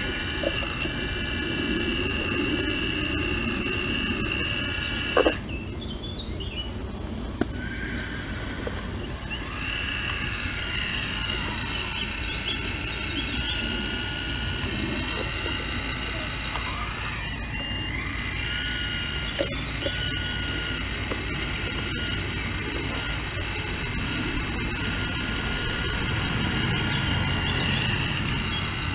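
Caterpillar 235 hydraulic excavator at work: its diesel engine runs steadily under a continuous high-pitched hydraulic whine, with occasional sharp knocks. The loudest knock comes about five seconds in.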